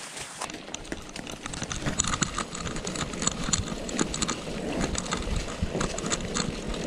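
Mountain bike being ridden over rough ground: a steady rumble of tyres with many irregular clicks and rattles from the bike, and wind buffeting the microphone.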